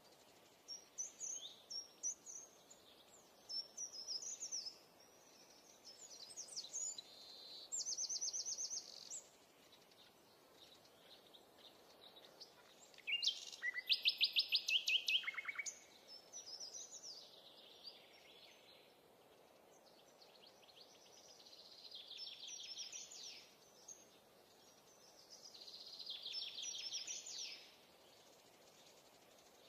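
Birds singing: scattered chirps and trills, with a loud rapid trill about thirteen seconds in, over a faint steady hiss.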